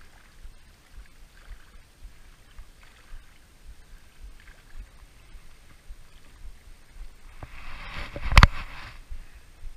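Small waves lapping at a rocky shoreline, with a low rumble of wind on the microphone. About eight seconds in comes a second of rustling with one sharp knock, the loudest sound.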